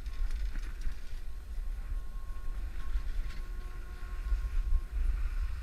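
Wind rumbling on a GoPro microphone as skis slide over snow off a chairlift unloading ramp, with a faint steady whine in the background.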